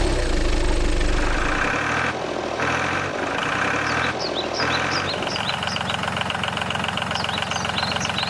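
A motor or engine running steadily, with short high chirps over it in the second half.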